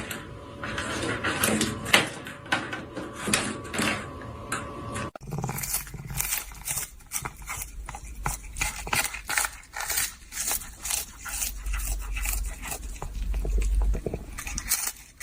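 A pet dog's sounds with many short clicks and scrapes; the sound cuts abruptly to a different scene about five seconds in.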